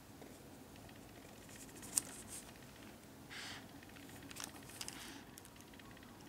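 Kitchen scissors snipping through marshmallow, and hands handling the pieces on baking paper. There are small soft clicks, one sharp click about two seconds in, and a brief papery rustle midway.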